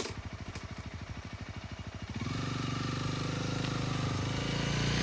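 Motorcycle engine running with an even firing beat, getting louder and steadier about two seconds in as it is revved. A short click sounds right at the start.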